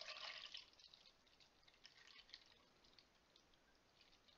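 Milk poured from a carton into a plastic measuring jug, a faint liquid trickle mostly in the first second, then near silence.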